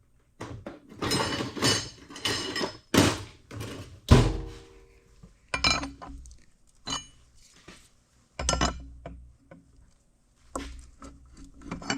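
Steel sprocket being knocked along a gearbox shaft where it sticks at a tight spot: irregular metallic thunks and clinks. There is a quick run of knocks at the start, then single ones every second or so, with the loudest about four seconds in and a short ring after it.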